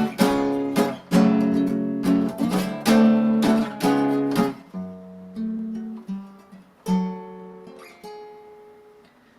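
Acoustic guitar playing an instrumental break between sung verses. It strums full chords for the first half, then changes to quieter single plucked notes that ring and fade away near the end.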